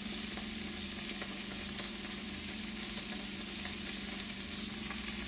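Pork fillet pieces frying in oil in a skillet, sizzling steadily, with sliced white onion and green onions just tipped in among them.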